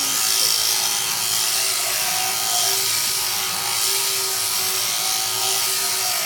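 Powered sheep-shearing handpiece running steadily as it cuts through the fleece: a constant whirring buzz.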